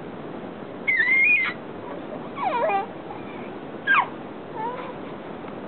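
Baby squealing: four short, high-pitched squeals and coos, a wavering one about a second in, a swooping one that dips and rises a little later, a quick squeak near four seconds and a short coo just after.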